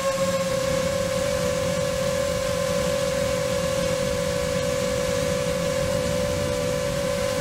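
Multirotor drone's motors and propellers whining at a steady, high pitch while it hovers, with a rough rushing noise under it.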